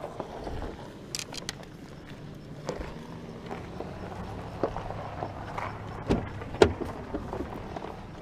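Footsteps and the clicks and clatter of fishing gear being handled beside a car, over a low background hum. Two heavy knocks come about six seconds in.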